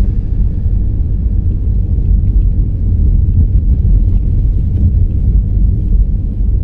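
Steady low rumble of a car being driven on a snowy road, engine and tyre noise as heard from inside the car.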